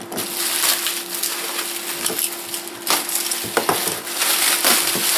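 Plastic bubble wrap crinkling and rustling as it is pulled off by hand, with sharper crackles now and then.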